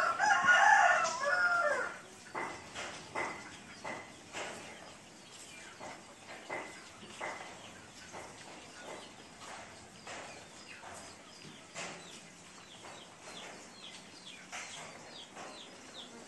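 A rooster crows once at the start, then steady rain falls with scattered short clucks and bird calls.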